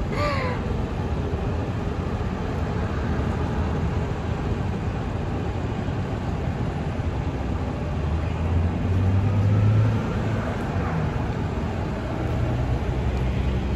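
Steady road traffic noise, with a vehicle passing louder about eight to ten seconds in.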